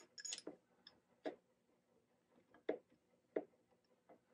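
A few light, separate clicks and taps, four or five over the stretch, from a spindle mount and its bolts being handled and fitted against the Shapeoko 4's HDZ Z-axis plate.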